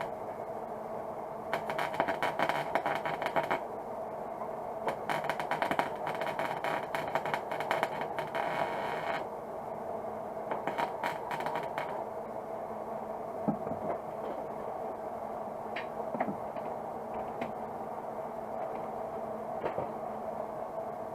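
Arc welder crackling in three bursts as a nut is welded onto a broken exhaust manifold stud in the cylinder head, to give a grip for turning the stud out. A steady hum runs underneath, and a few light taps follow near the end.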